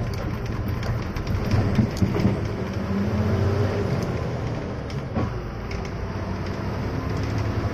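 Bus engine running steadily under way, heard from inside the cab, a constant low drone with scattered light clicks and rattles.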